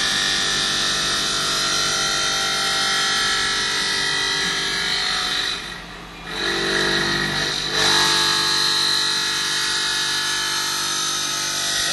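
CNC bridge saw cutting a stone slab wet, its spindle and circular blade giving a steady high whine. About six seconds in the sound briefly drops away, then comes back and grows louder again from about eight seconds.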